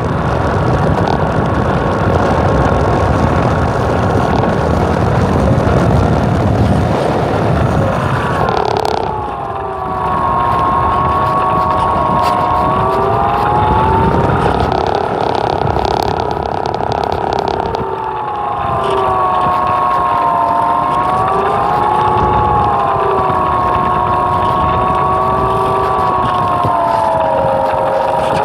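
A small aircraft's motor runs steadily, its pitch rising and falling again and again, while wind buffets the microphone.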